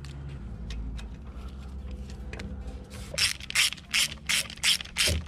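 Socket ratchet on a long extension driving a bolt into the Cruze's M32 transmission shift mechanism. After a low steady hum, it clicks in quick strokes, about three a second, from about three seconds in.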